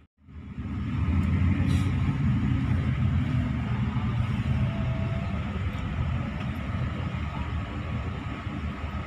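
Intercity bus driving in traffic, heard from inside the passenger cabin: a steady low engine and road rumble. It starts after a brief silence at the very beginning.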